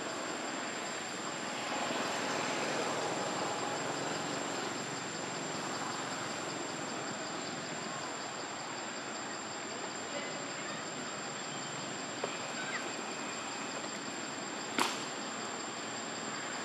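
Steady outdoor forest ambience: an even hiss with a thin, steady high-pitched whine over it, a few faint ticks, and one sharp snap near the end.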